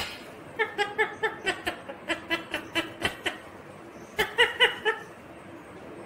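Laughter in three quick runs of short 'ha' notes, about five a second, after a sharp knock at the very start.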